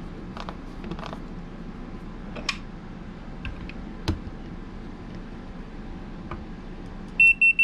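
Scattered small clicks and knocks of lock parts being handled, then near the end three short, loud, high-pitched electronic beeps from an electronic keypad RV door lock.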